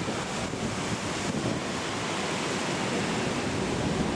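Boeing 737's twin jet engines running as the airliner moves along the runway: a steady rushing noise that grows slightly louder toward the end.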